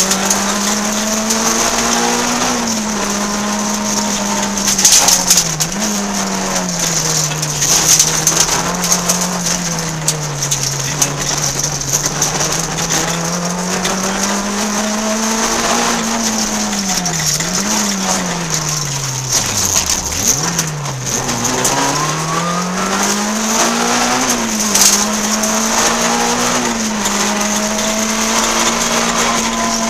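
Peugeot 106 rally car's engine at full effort, heard inside the cabin: the revs climb and fall again and again with quick gear changes, drop very low about two-thirds through, then climb hard again. Road noise and short knocks and rattles run underneath.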